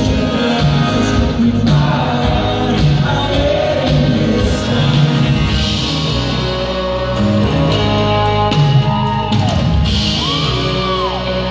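A live rock band playing electric guitars and drums, with a singing voice, heard from the audience in a large hall. Near the end, two notes slide up and back down.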